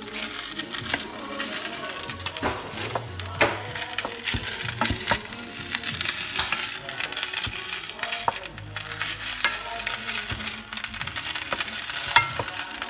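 Food sizzling and simmering in a cooking pot, with scattered clicks and knocks of a utensil stirring against the pot.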